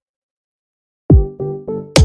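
Silence, then electronic background music starts about a second in: a drum-machine beat of deep kick drums about three a second under synth bass notes, with a bright snare or cymbal hit near the end.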